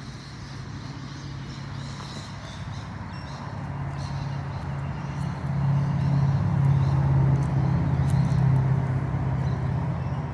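A motor vehicle's engine hum, steady in pitch, growing louder about halfway through and easing off near the end, as of a vehicle passing slowly nearby.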